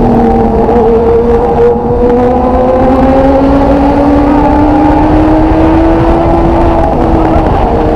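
Motorcycle engine running under way, its pitch drifting slowly up and down with the throttle, over a heavy low rumble of wind and road noise.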